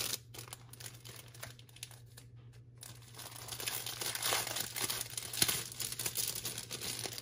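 Clear plastic cellophane packaging crinkling as it is handled, sparse for the first few seconds and busier from about halfway through.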